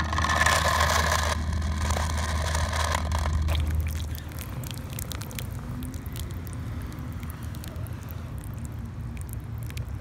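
Toy Lightning McQueen car with paddle wheels churning through pool water, its wheels splashing. The first four seconds are louder with a steady low rumble; after that it settles into lighter splashing with many small ticks.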